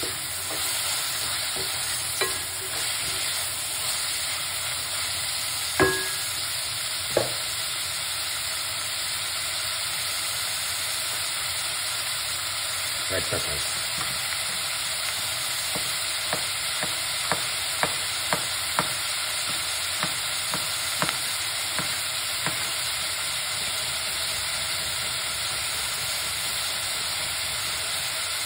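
Julienned carrots and onion frying in an aluminium pot with a steady sizzle, stirred with a wooden spoon at first. Two louder knocks come about six and seven seconds in, and a run of sharp pops comes in the second half.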